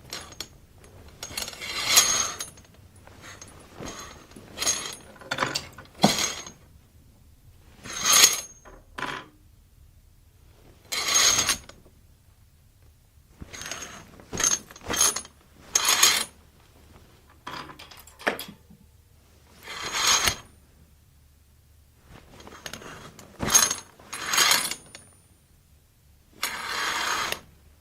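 A curtain being pulled along its rod in a series of short strokes, each a second or less, with pauses between. The hangers slide along the rod with a scraping, clinking metallic sound.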